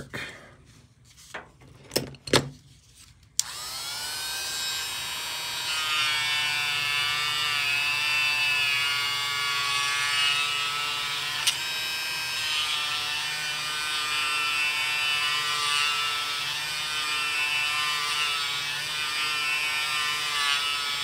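A few knocks as the parts are handled, then a Dremel rotary tool switches on about three seconds in and spins up with a rising whine. It then runs steadily, its felt buffing wheel and compound polishing the tarnish off a small metal model-train wheel, the pitch wavering as the wheel is pressed to it. There is one sharp click about halfway through.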